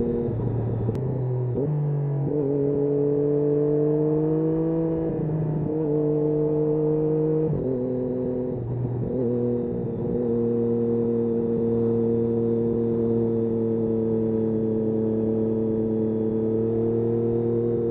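Triumph Daytona 675's inline three-cylinder engine running under way, its pitch shifting several times in the first half as the revs change, then holding a steady note that slowly climbs near the end.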